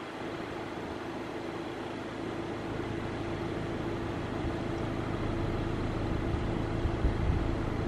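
Steady hum of an idling car engine, slowly growing a little louder, with a few low bumps near the end.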